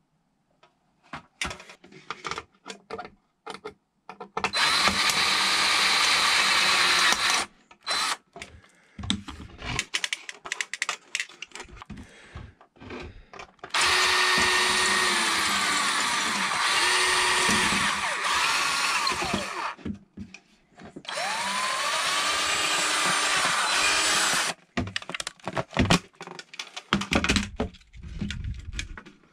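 Cordless drill drilling out the aluminium rivets on the back of a sheet-metal light fixture in three runs of a few seconds each. The motor's pitch slides down and back up during the second and third runs, and there is clicking and clattering between the runs.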